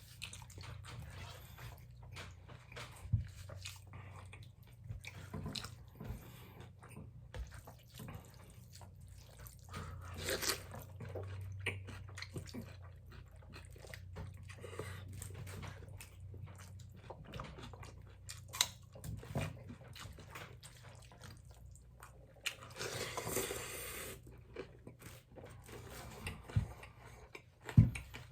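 People eating noodles: chewing and slurping mouth sounds, with scattered small clicks and knocks and a longer noisy stretch a little after twenty seconds.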